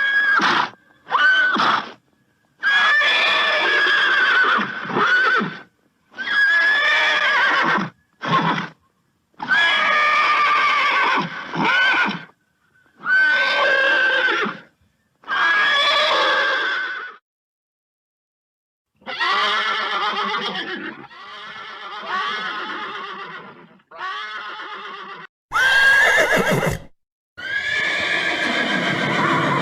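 Horse neighing again and again: about a dozen whinnies of one to three seconds each, wavering in pitch, with short gaps and a pause of about two seconds past the middle. One harsher, noisier call comes about four seconds from the end.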